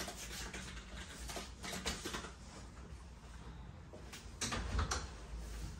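Faint clicks, knocks and rustling of clothes on hangers being hung on a wooden wardrobe's rail, with a few louder knocks about four and a half seconds in, over a low room hum.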